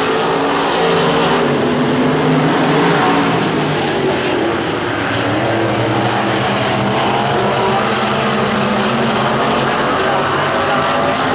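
A pack of IMCA stock cars racing, their V8 engines running together in a steady, loud din of overlapping, wavering engine notes.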